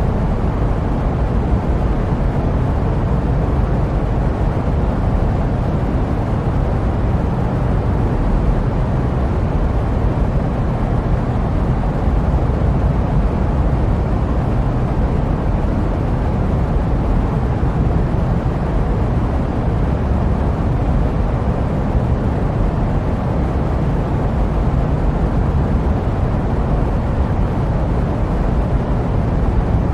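Steady jet aircraft noise played as sleep white noise: an even, deep hiss with most of its weight low down and no changes.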